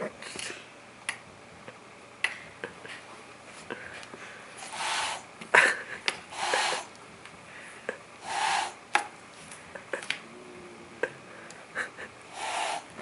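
A domestic cat hissing in several short bursts at a handheld vacuum pushed toward it, a defensive warning, with a few sharp clicks in between.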